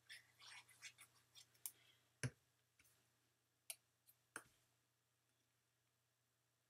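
Faint handling sounds of cardstock and a fine-tip liquid glue bottle: soft rustles, then a handful of light clicks and taps, the sharpest about two seconds in.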